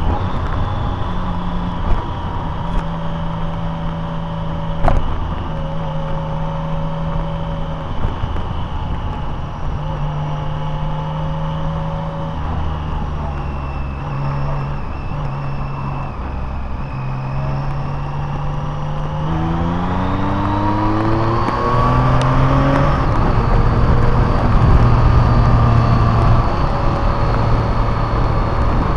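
Car engine running with road noise while driving. About two-thirds of the way through, the engine note rises as the car accelerates, then it settles into a steady run.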